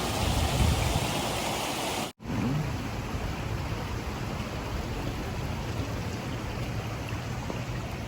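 Running water: a steady rush of waterfall or stream water. It cuts out for an instant about two seconds in and comes back a little softer and duller.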